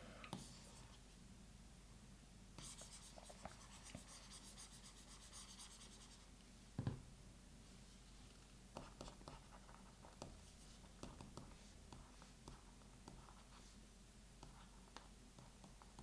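A stylus writing and tapping on an e-ink tablet screen, faint: scratchy strokes from about 2.5 to 6 seconds in, then scattered light taps, with one soft knock about 7 seconds in.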